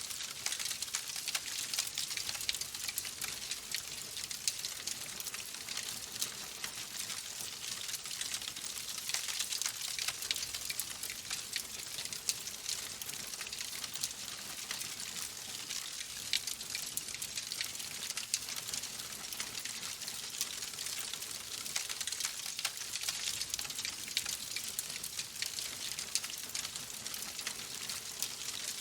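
Wood fire in a fireplace burning steadily, with a continuous hiss and dense, rapid crackling and small pops from the burning logs.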